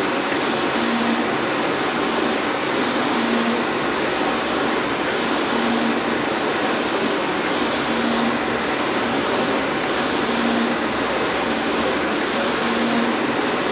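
UV flatbed inkjet printer running while it prints on a plastic sheet: a steady, loud machine hiss whose top end dips about once a second, with a short low hum about every two and a half seconds.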